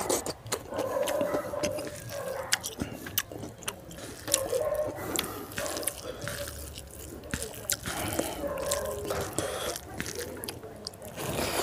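Close-up wet mouth sounds of a man eating rice and pork curry by hand: chewing with many sharp, moist clicks and smacks throughout.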